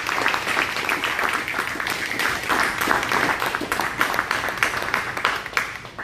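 A small audience applauding, a dense patter of hand claps that thins out and stops near the end.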